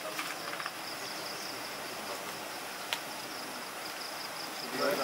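Steady high-pitched insect buzz, with a single sharp knock about three seconds in.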